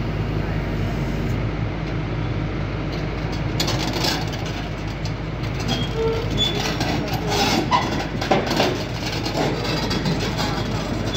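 Kobelco crawler excavator's diesel engine running steadily. From about four seconds in, irregular metallic clanks and short squeaks come in, typical of its steel crawler tracks moving.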